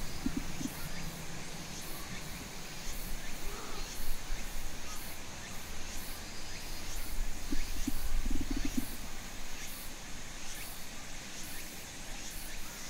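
Outdoor ambience around Japanese macaques: a steady low rumble, with short low grunts from the monkeys near the start and again about eight seconds in.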